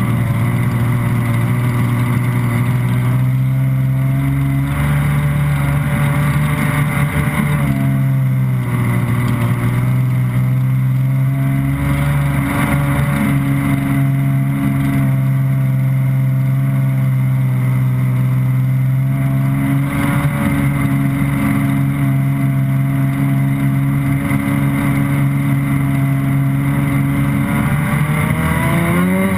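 Stand-up jet ski engine running at a steady cruising speed under way, its drone shifting a little in pitch now and then, over a rush of water and spray. The pitch rises at the very end.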